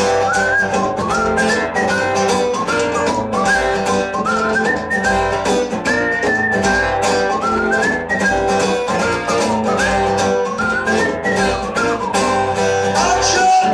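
Live band playing an instrumental break: guitar chords over a steady drum beat, with a lead melody climbing in short repeated phrases.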